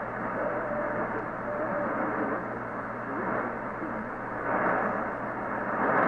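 Static hiss from a Sparc portable radio's speaker tuned to an AM station, with a faint broadcast voice buried under the noise.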